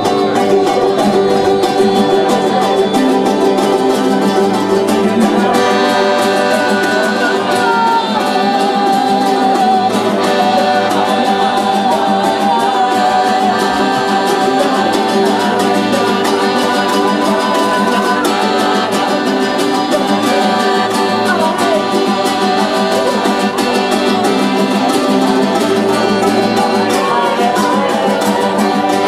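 Music with plucked guitar and a singing voice, steady and continuous.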